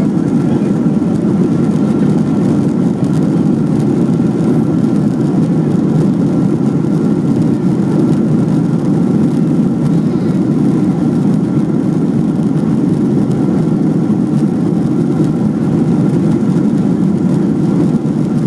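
Steady roar of a Boeing 737-700's CFM56-7B jet engines and rushing air heard inside the passenger cabin during the takeoff climb, with a faint steady whine above the rumble.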